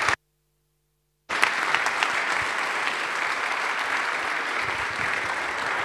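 Audience applauding, steady clapping broken by about a second of silence just after the start.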